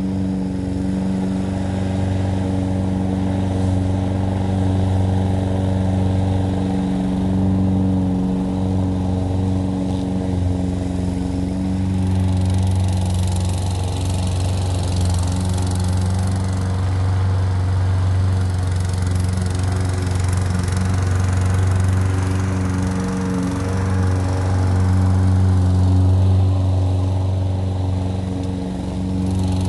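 Walk-behind gas lawn mower engine running steadily while mowing.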